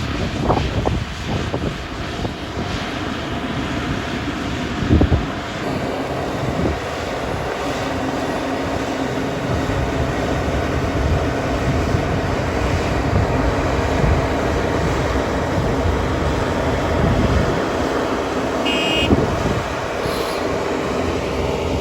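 Claas Dominator 98SL combine harvester running steadily at work, its engine and threshing machinery giving a constant drone. A couple of knocks come about five seconds in.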